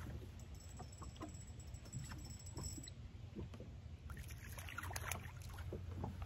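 A small crappie being reeled in on a light rod: faint clicks and knocks over a low steady hum, with a stretch of splashing from about four seconds in as the fish is brought to the surface and swung up to the boat.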